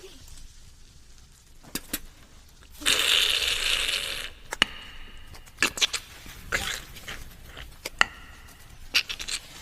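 Beatboxed mouth sound effects imitating eggs being cracked and fried: sharp clicks and cracks, with a loud hiss like sizzling lasting over a second about three seconds in, then more clicks and short crackles.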